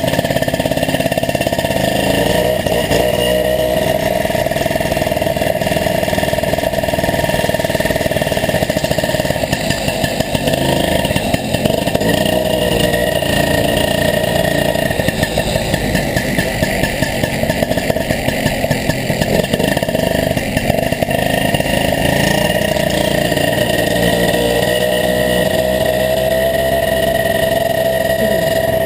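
Moped's small two-stroke engine running under way, its note dipping and climbing a few times as the throttle and speed change.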